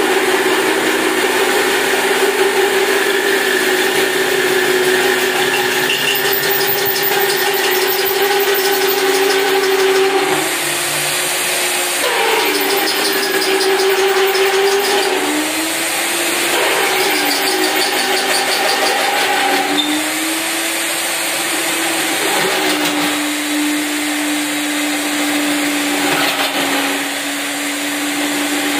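Eurobore magnetic drill's electric motor running at a steady pitch. The pitch sags and recovers several times as the cutter is fed into the steel with the feed handle, the motor slowing under cutting load.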